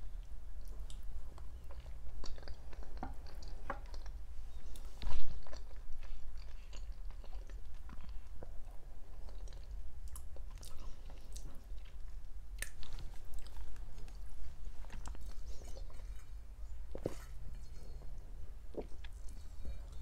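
Close-miked chewing of stuffed vine leaves (dolma): soft wet smacks and small clicks from the mouth, with one much louder sharp click about five seconds in.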